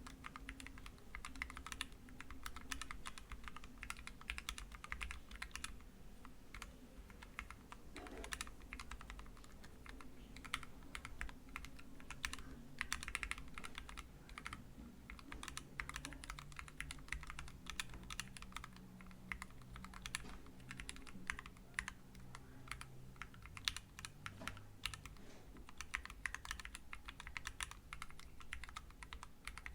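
Typing on an Ergodash split mechanical keyboard with Gateron KS8 switches lubed with 205g0 and blank ePBT cherry-profile keycaps: a continuous, uneven run of keystroke clacks.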